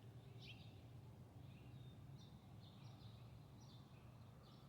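Near silence: faint, short bird chirps repeating every half second or so over a low, steady background hum.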